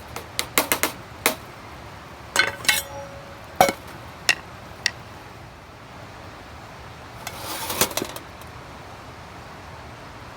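Metal camp cookware clinking and knocking, a dozen or so sharp taps in the first five seconds, one ringing briefly, then a short scrape about eight seconds in.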